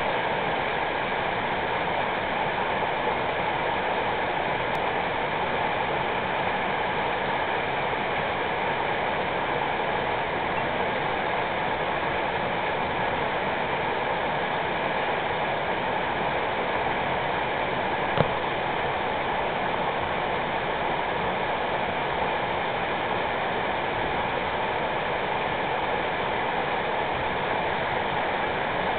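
Fast river water rushing steadily over the shallows, breaking white against the bank. One brief knock partway through.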